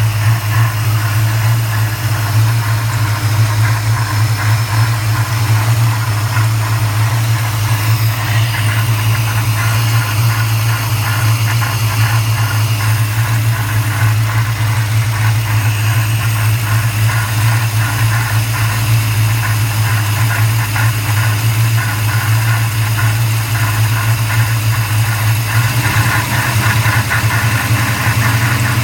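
1994 Chevrolet Caprice's LT1 5.7-litre V8 idling under the hood, with an odd whooshing, rubbing noise of unknown cause. A fast ticking rhythm comes in from about eight seconds in, and near the end the low hum of the engine shifts.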